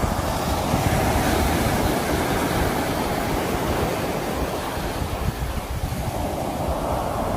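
Sea waves breaking and washing on the shore, a continuous surf noise with deep rumble, swelling about a second in and again near the end, with wind on the microphone.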